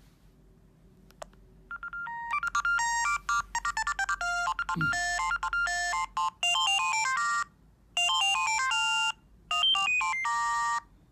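Bird S1150 mobile phone playing a ringtone: a fast synthesized tune of bright, beeping notes that starts about two seconds in, pauses briefly twice, and stops just before the end.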